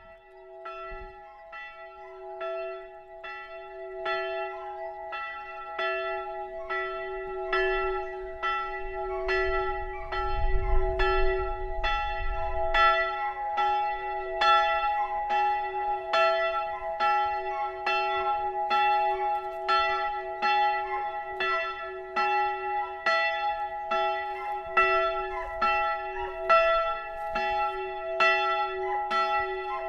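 A single swinging church bell tolling for the pre-service call (Vorläuten), rung half an hour before a service. Its strokes grow louder over the first several seconds as the bell swings up. It then strikes evenly, a little over once a second, each stroke ringing on into the next.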